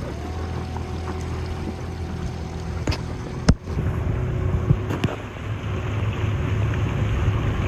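Motorboat engine running steadily as a low hum, with wind and water noise. A sharp click comes about three and a half seconds in.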